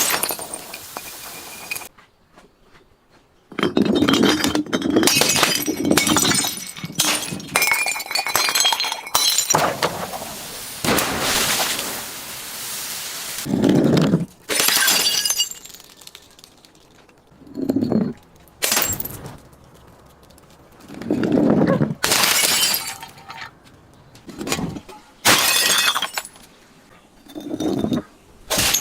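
Glass bottles breaking and being crushed, a series of separate crunching, shattering crashes several seconds apart, with a short near-silent gap a couple of seconds in.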